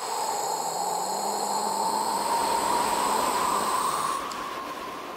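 Cartoon sound effect of the wolf huffing at the brick house: one long, steady whoosh of blown breath like a gust of wind, fading away near the end.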